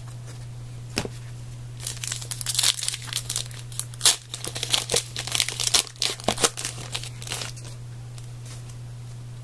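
Foil wrapper of a 2011-12 Panini Certified hockey card pack being torn open and crinkled, a dense run of sharp crackling over about six seconds after a single click. A steady low electrical hum runs underneath.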